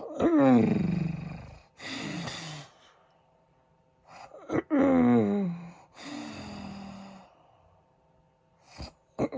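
A man snoring loudly in his sleep: two long, loud snores that slide down in pitch, each followed by a quieter, breathy breath, with a third snore starting right at the end.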